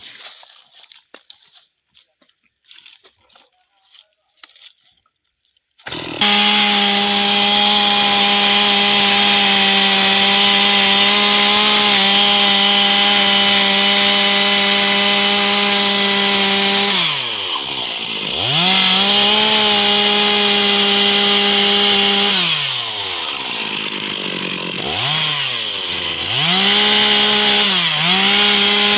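Chainsaw cutting teak wood at full throttle, coming in abruptly about six seconds in after faint handling noises. Its steady high pitch drops and climbs back several times in the second half as the throttle is eased off and squeezed again.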